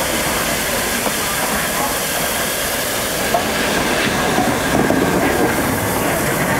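LNER Peppercorn Class A1 steam locomotive 60163 Tornado and its train rolling slowly past at close range: a steady rumble and hiss with a few light clicks. It grows a little louder as the engine draws level, about five seconds in.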